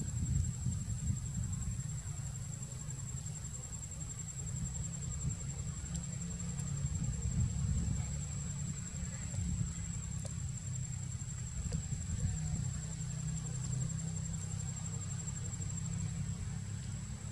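Steady high-pitched insect drone over a continuous low rumble.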